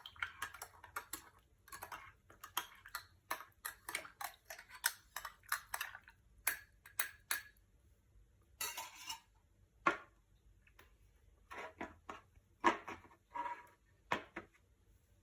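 A spoon stirring a glass of hot water, honey and lemon slices, clinking quickly and repeatedly against the glass for about six seconds. After that come a few scattered clinks and taps, one of them ringing briefly.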